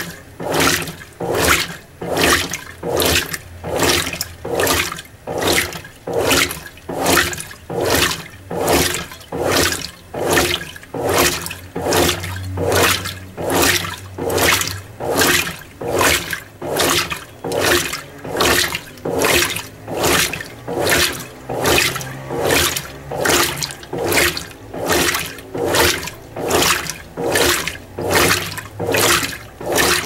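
Mueller Energy 8 kg top-load washing machine agitating a small load of whites at low water level. The agitator turns back and forth, sloshing the water in rhythmic swishes, about three every two seconds.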